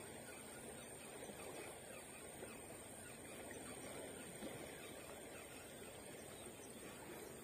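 Faint, steady rush of a flowing river, with a thin, steady high-pitched whine.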